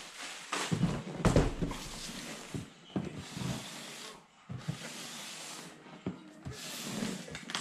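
Loose plastic wrap rustling and a cardboard printer box being handled and turned on a countertop, with a few soft knocks of the box against the counter.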